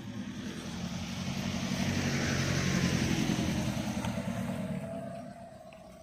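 A motor vehicle driving past: its engine and tyre noise grow louder to a peak about three seconds in, then fade away as it goes by.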